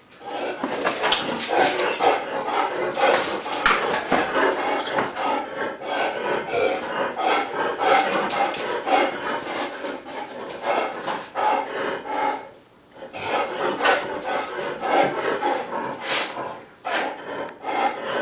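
German Shepherd Dog growling almost without pause at a cat on the other side of a closed window, breaking off briefly about two thirds of the way through.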